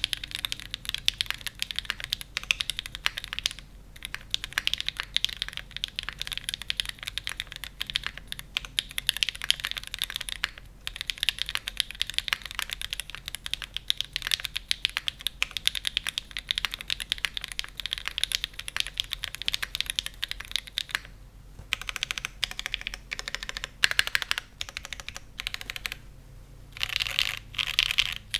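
Fast continuous typing on a Cloudline V2 custom mechanical keyboard with factory-lubed Gateron Deepping switches, an aluminium plate, an O-ring mount, no foam, and GMK keycaps: a dense run of keystroke clacks broken by a few short pauses.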